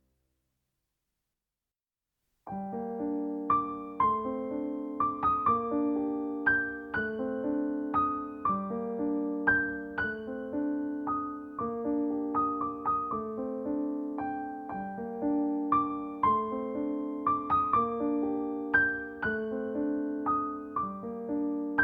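Background piano music: silent for about the first two and a half seconds, then a gentle piano piece of repeated struck notes and chords.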